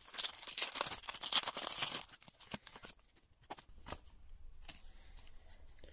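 Pokémon TCG booster pack's foil wrapper being torn open and crinkled for about two seconds, followed by a few faint scattered ticks and rustles.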